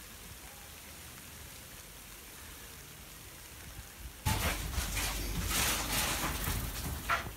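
Rain falling: a faint steady hiss that turns into a much louder, rougher downpour about four seconds in.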